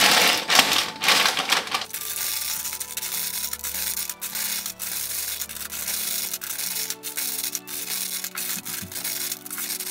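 Clear plastic LEGO parts bags crinkling and rustling as they are handled, loud for about the first two seconds. After that, soft background music with held notes plays over fainter, continued bag crinkling.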